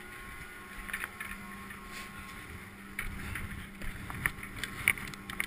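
Chairlift running at its loading station: a steady mechanical hum with scattered light clicks and knocks as a chair is boarded and carried out under the bullwheel.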